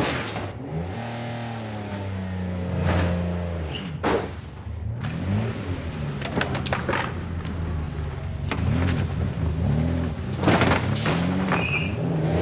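Lamborghini Countach V12 engine revving up and falling back again and again in short surges, broken by several sharp bangs. The loudest bangs come about two-thirds of the way through.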